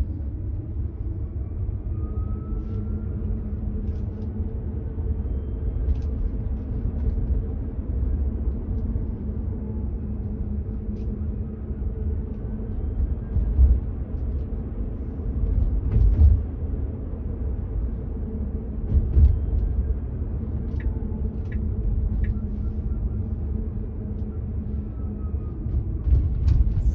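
Low, steady road and tyre rumble inside the cabin of a Tesla Model 3, an electric car with no engine note, as it drives slowly on Full Self-Driving, with a few louder low bumps and faint clicks along the way.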